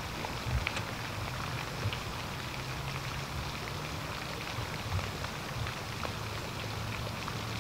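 Steady outdoor background noise: an even, rain-like hiss over a low hum, with a few faint ticks and no clear single event.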